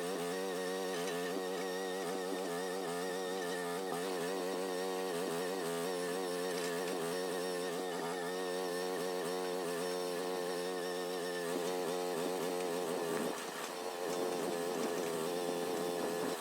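Groundhog mini excavator's engine running, its pitch wavering up and down as the hydraulics take load, with a brief dip about thirteen seconds in.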